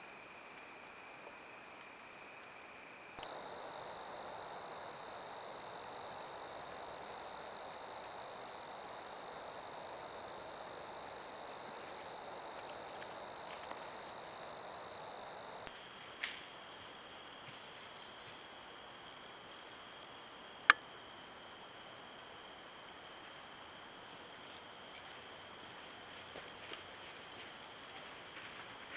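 Crickets trilling in a steady high-pitched chorus that shifts abruptly twice as the trail-camera clips cut, louder in the last part. A single sharp click about two-thirds of the way through.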